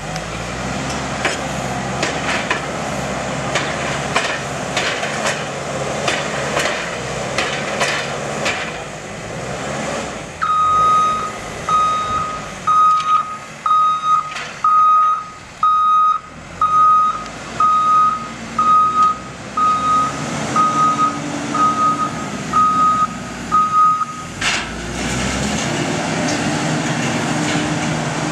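Diesel machinery working a silage pit, engine running with scattered knocks and rattles. About ten seconds in, a reversing alarm starts beeping roughly once a second for about fourteen seconds, then stops and the engine carries on.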